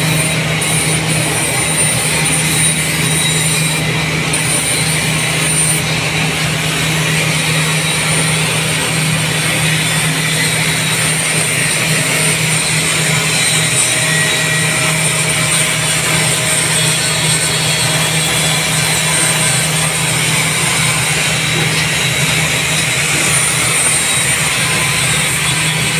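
Electric angle grinder running steadily and grinding steel: a constant motor hum with a high hiss.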